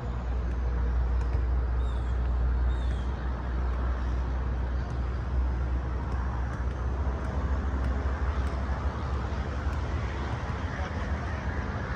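Steady low outdoor rumble with faint knocks of soccer balls being kicked now and then.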